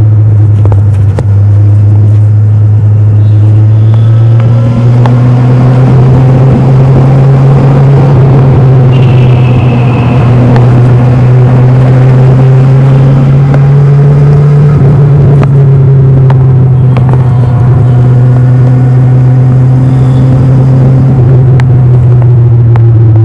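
Kawasaki Ninja 1000's inline-four engine under way on its stock exhaust, a steady loud drone whose pitch climbs gradually through the middle and eases back down toward the end.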